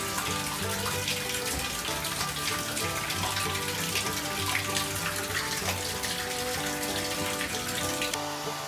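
Water running steadily, a dense hiss that cuts off suddenly near the end, over background music with held notes.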